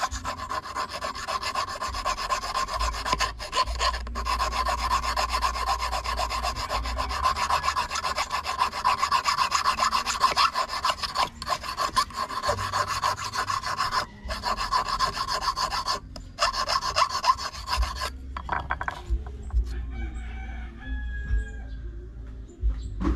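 Hand file rasping in quick strokes across the tip of a stainless steel wire, shaping it into a fishing hook. There are a couple of brief pauses, and the filing stops about 18 seconds in.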